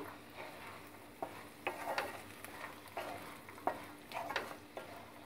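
Wooden spatula stirring and scraping through frying vegetables in a metal kadhai, working powdered spices into the hot oil, with a faint sizzle underneath. The strokes are short and irregular, several over a few seconds.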